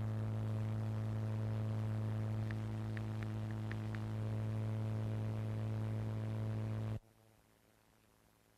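A steady low hum with a buzzy edge and a few faint ticks around three seconds in. It cuts off abruptly about seven seconds in, leaving near silence.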